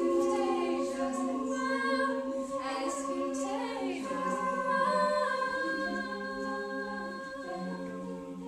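An a cappella vocal group singing in harmony, with long held chords that change together every second or two, growing a little quieter over the last few seconds.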